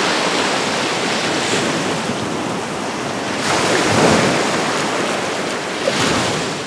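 Small surf waves washing up on a sandy beach, with wind buffeting the microphone; one wave surges louder about four seconds in.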